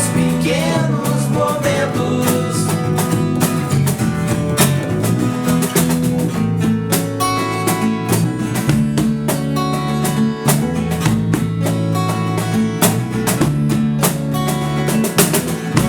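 A rock/pop band playing the instrumental close of a song, led by guitar, with sustained chords and frequent percussive hits and no lead vocal.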